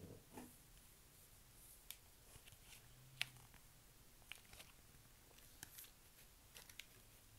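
Faint scattered clicks and light rustles of fingers handling and tapping a cardboard board book, over a low steady hum.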